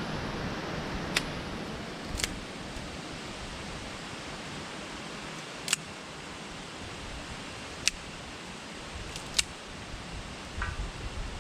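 Campfire crackling: half a dozen sharp, widely spaced pops over a steady hiss of wind.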